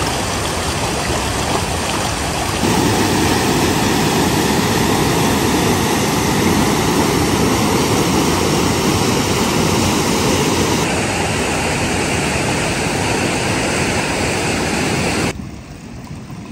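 Rushing mountain stream and river rapids: a steady roar of fast water. It gets louder abruptly about a few seconds in and falls away sharply near the end, leaving only a faint sound.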